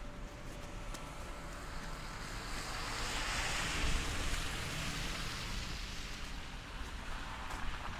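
Snowstorm wind buffeting the microphone with a steady low rumble, and a hiss that swells about three seconds in and fades away again a few seconds later.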